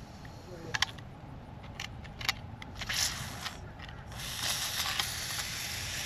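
Aerosol can of PB Blaster penetrating oil spraying onto a rusted-in wheel bearing to loosen it. There is a short spray about three seconds in and a longer one from about four seconds in, with a few light clicks before them.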